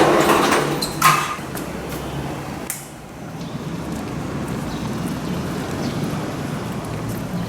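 Vehicle traffic noise: a steady rumble with a loud hiss at the start and a sharp knock about a second in.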